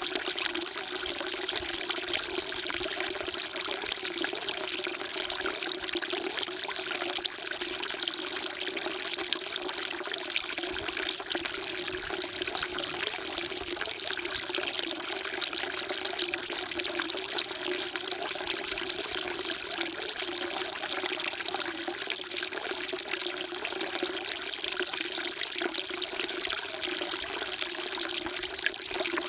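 Water falling steadily from a spout into a stone water trough (sugwak), a continuous, even pouring trickle.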